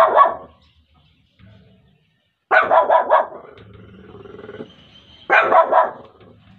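Small dog, a Shih Tzu, barking in short bursts: one bark right at the start, a quick run of barks about two and a half seconds in, and another burst a little past five seconds.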